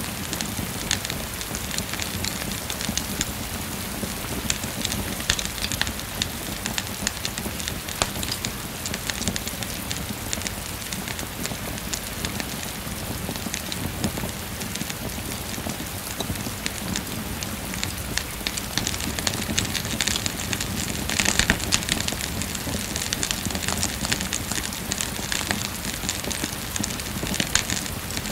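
Steady rain falling, mixed with the crackling of a wood fire, with a louder cluster of crackles about three-quarters of the way through.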